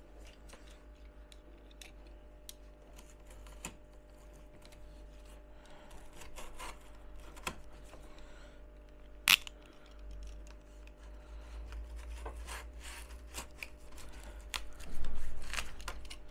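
Utility knife cutting corrugated cardboard strips by hand: scattered scratches and clicks, one sharp click about nine seconds in, and a louder rasping cut near the end.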